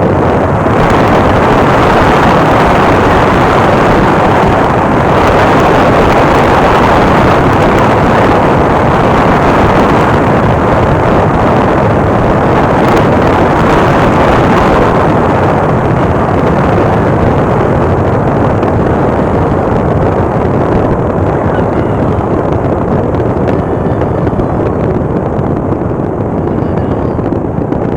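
Loud, steady rushing noise of a moving vehicle, with wind buffeting the microphone; it eases a little about halfway through.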